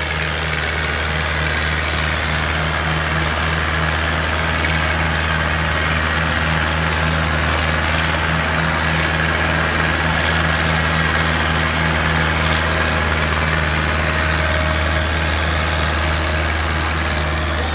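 Diesel engine of a Fiat farm tractor running steadily under load as it pulls a disc harrow through the soil, a constant low drone with no change in pitch.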